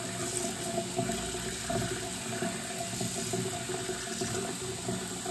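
Tap water running steadily from a faucet into a sink basin.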